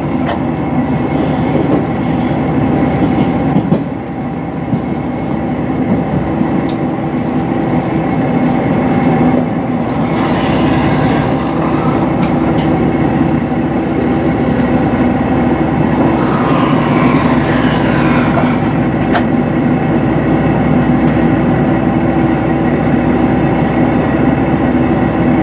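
Cabin running noise of a HOT7000-series diesel multiple unit: a steady hum of the engine and the wheels on the rails, with some clicking over the track. High squeals come and go part-way through, and a thin high whine holds near the end.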